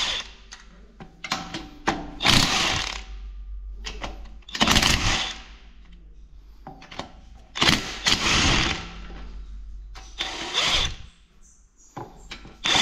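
Tools working on a 178F single-cylinder diesel engine being taken down: short, loud bursts of a power tool or wrench every couple of seconds, with sharp clicks between them.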